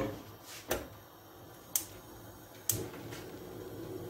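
A few sharp clicks and knocks about a second apart as kitchen things are handled, then a faint steady hum sets in near the end.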